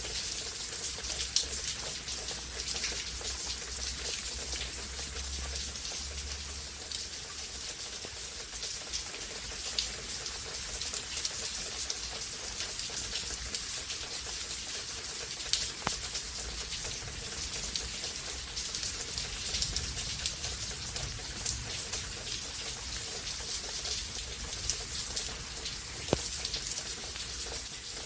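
Steady rain falling, a constant hiss with many fine drop ticks and a few sharper single drips. A low rumble sits underneath in the first few seconds.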